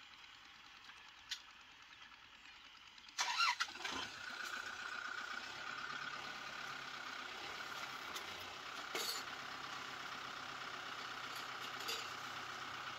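Kubota M6040SU tractor's diesel engine starting about three seconds in, with a short loud burst as it catches, then running steadily.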